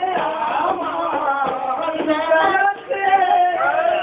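A man singing a Bengali song with instrumental accompaniment, the voice gliding between sustained notes over steadier held tones.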